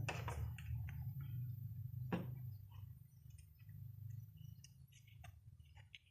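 Scattered small clicks and taps, one sharper click about two seconds in, over a low hum that fades away during the first few seconds.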